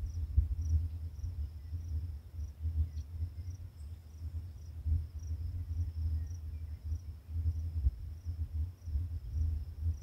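Insects chirping in a steady high trill, pulsing evenly about twice a second, over the louder low, gusting rumble of wind buffeting the microphone.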